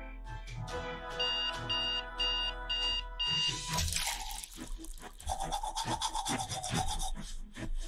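Cartoon background music with sound effects: a run of five short, high electronic beeps about a second in, then a stretch of rubbing, brush-scrubbing noises over the music.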